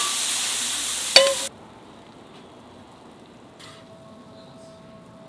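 Fava beans sizzling loudly on a hot flat pan, with a metal spatula ringing once against the pan about a second in. The sizzle cuts off abruptly at about a second and a half, leaving a quiet background with a faint steady tone.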